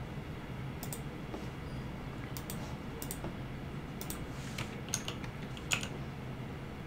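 Computer keyboard keystrokes: scattered single key presses, about eight sharp clicks at uneven intervals, the two loudest near the end, over a steady low hum.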